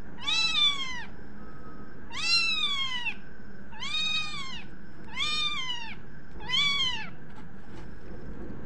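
Young kittens meowing: five high, thin mews about every second and a half, each rising then falling in pitch.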